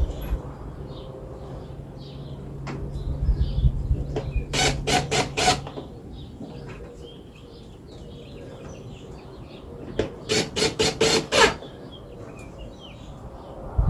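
Sharp knocks on a wooden workpiece in two quick runs of four or five, about halfway through and again near the end. A steady low hum runs under the first half, with faint birdsong in the background.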